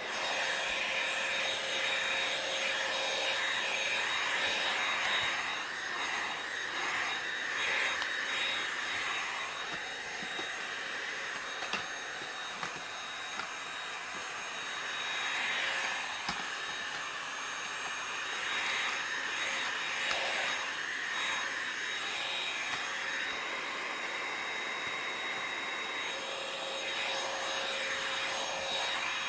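Corded stick vacuum cleaner running steadily with a constant high whine, its floor nozzle being pushed back and forth across foam floor mats.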